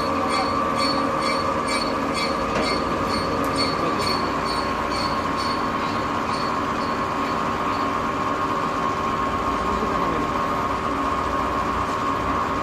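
Metal lathe running while threading a long rod: a steady high whine with several held tones. A light ticking, about three a second, fades out about halfway through.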